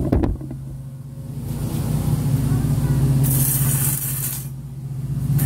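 A steady low mechanical hum, with a burst of hissing about three seconds in.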